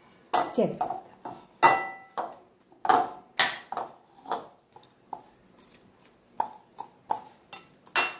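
A metal spoon stirring shrimp in a masala marinade in a cut-glass bowl, striking the glass in irregular sharp clinks that ring briefly. The clinks come several a second at first and thin out after about four seconds.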